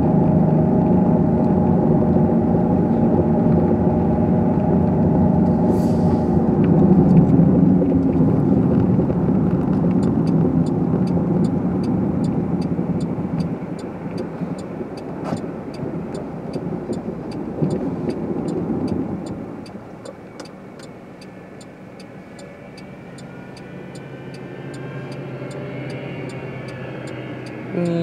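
Car engine and road noise heard from inside the cabin, driving on packed snow, dropping off to a much quieter low hum about two-thirds of the way through as the car slows. From about ten seconds in, a turn signal ticks steadily, two to three ticks a second.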